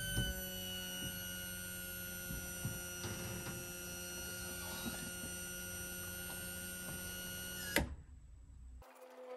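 RV slide-out motor running with a steady electric hum, drawing the slide mechanism in a couple of inches. It cuts off after about eight seconds with a short knock.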